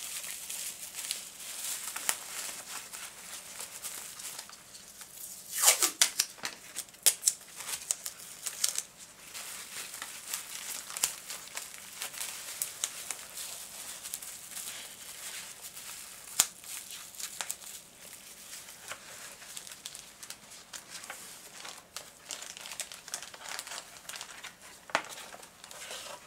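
Packing material crinkling and rustling as small objects are wrapped by hand, with sharp crackles and clicks throughout, loudest about six seconds in.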